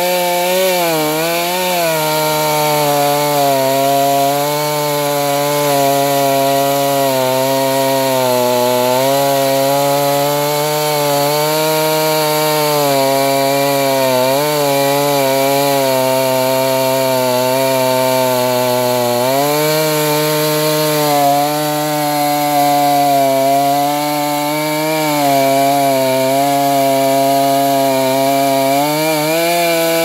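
Stihl 500i fuel-injected two-stroke chainsaw running hard under load, ripping a cedar log lengthwise in a homemade chainsaw mill. The engine note holds high and steady, sagging and recovering briefly a couple of times as the load on the chain changes.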